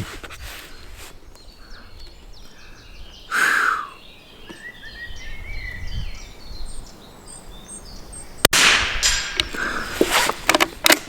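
A single .22LR rifle shot from a Norinco JW25A bolt-action K98 copy, a sharp crack about eight and a half seconds in, followed by a few sharp clicks. Birds chirp faintly in the background.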